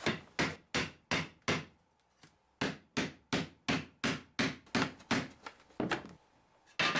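Hammer tapping a new wooden drawer side into a tight dry fit: a string of sharp knocks on wood, about three a second, with a pause of about a second near the two-second mark.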